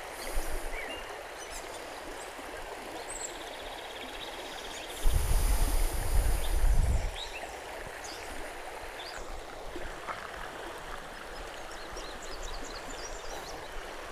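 Shallow river running steadily over a riffle. About five seconds in, a loud low rumble buffets the microphone for roughly two seconds.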